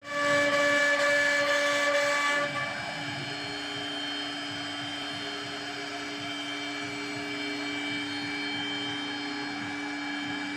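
CNC router spindle running with a steady high whine. For the first two and a half seconds it is louder, with a hiss over the whine, then it settles to a quieter, even whine.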